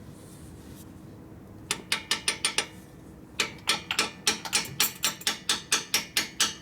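Light metal-on-metal hammer taps driving a new shifter shaft into a Harley-Davidson Ironhead Sportster transmission case: a short run of quick taps about two seconds in, a brief pause, then steady tapping at about five taps a second from about halfway on.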